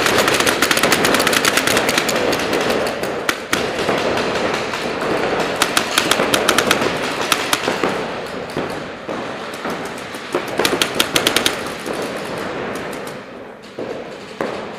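Paintball markers firing rapid strings of shots, several guns at once. The shooting comes in dense bursts, busiest at the start, about six to seven seconds in and about eleven seconds in, and thins out near the end.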